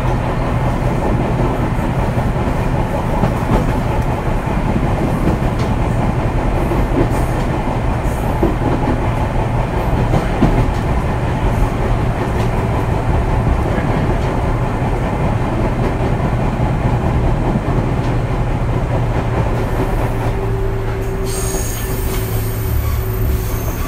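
Fujikyu 6000-series electric train (a converted JR 205 series) running, heard from inside the passenger car: a steady rumble of wheels and motors on the rails. Near the end a high-pitched hiss and squeal of the wheels joins in.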